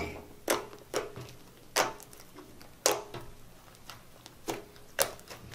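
Yellow slime being kneaded and squeezed by hand, giving irregular sharp clicking and squelching pops, about six in a few seconds.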